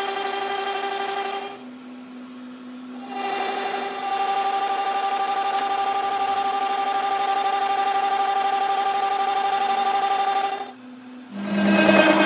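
Metal lathe turning a steel gear blank, the cutting tool giving a steady ringing whine with many overtones. The whine drops out twice for a second or so, leaving only the lathe's lower hum. Near the end a louder, rougher cutting sound at a different pitch takes over.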